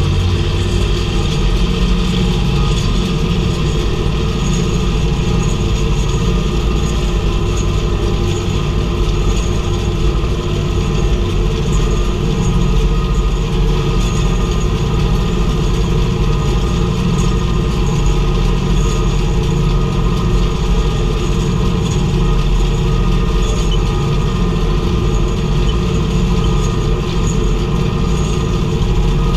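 International tractor engine running steadily under load while pulling a round baler, with a faint, regular tick about once a second.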